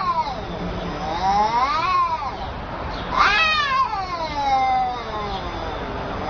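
A cat yowling in long, drawn-out meows, about three in a row, each sliding up and down in pitch.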